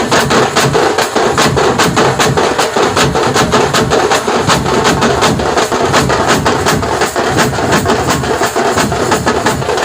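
Tamate frame drums beaten with sticks in a fast, even rhythm of sharp strokes, several to the second.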